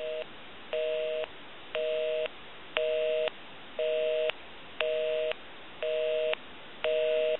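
Telephone busy signal heard over the phone line: a two-tone beep (about 480 and 620 Hz) repeating evenly, half a second on and half a second off, about eight times. The line is busy because the number dialed is the phone's own line.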